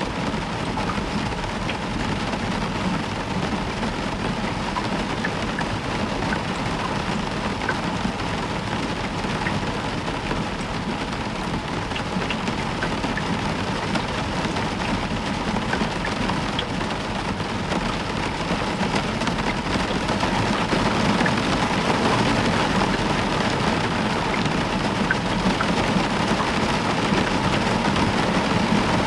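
Heavy rain falling steadily on a roof, a dense even hiss with scattered individual drop ticks, growing slightly louder about two-thirds of the way through.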